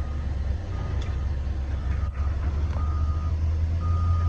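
Heavy machine's backup alarm beeping about once a second, one steady pitch, over the low drone of a diesel engine running.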